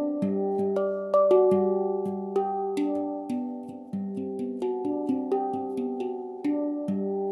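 Instrumental background music: a melody of ringing pitched notes that start sharply and fade, over lower held notes.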